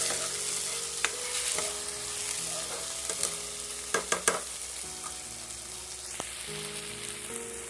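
Onions and spices frying in oil in a non-stick kadai, a steady sizzle, while a spatula stirs and scrapes through them, with a few sharp clicks of the spatula against the pan about four seconds in.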